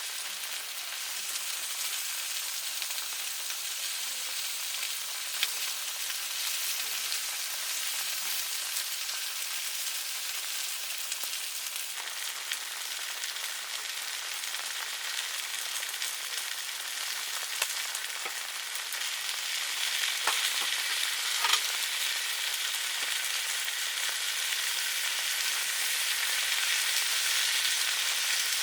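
Food sizzling and frying in a pan, a steady hiss that grows a little louder in the second half, with a few light clicks.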